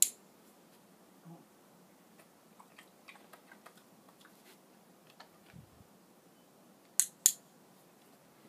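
A training clicker clicking twice, once right at the start and once about seven seconds in. Each click is a sharp double snap of press and release, about a quarter second apart, marking the wanted behaviour while a dumbbell hold is being shaped. Faint light ticks and taps come in between.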